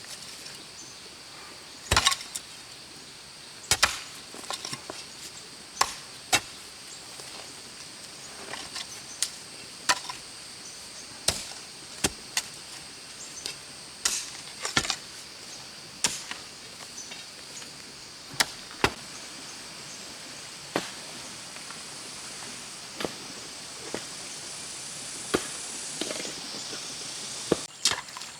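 A hoe chopping into field soil during hand digging: sharp, separate strikes every second or two, at an irregular pace.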